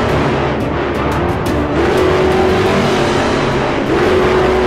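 Race-car engine sound effect running loud and steady, laid over background music, for a toy car speeding across the ground.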